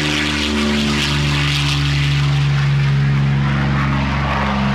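Piston engine of a World War II P-40 Kittyhawk fighter running as the plane moves along the airfield, a steady propeller-aircraft drone.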